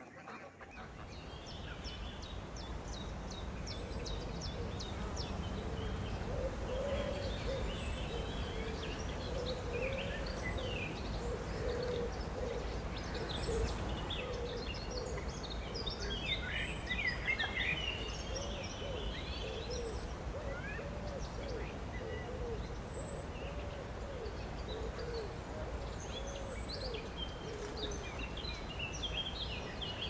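Outdoor birdsong: many short, high chirping calls over a repeated low cooing call, with a steady low rumble underneath. It fades in over the first few seconds.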